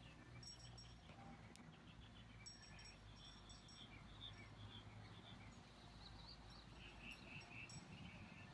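Faint birdsong: scattered short chirps and warbles from garden songbirds over a steady low background rumble.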